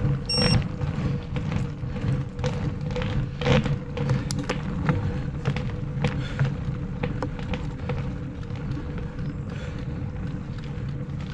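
Mountain bike rolling along a concrete path: the knobby tire hums steadily on the cement, with frequent sharp clicks and rattles from the bike and a low rumble of wind on the microphone.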